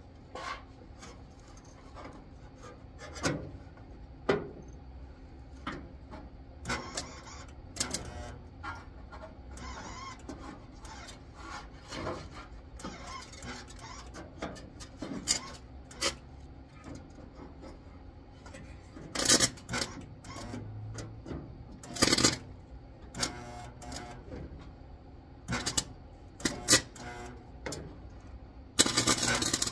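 Scattered knocks, clanks and scraping from hand work on metal. Near the end a dense, harsh crackling noise starts and keeps going.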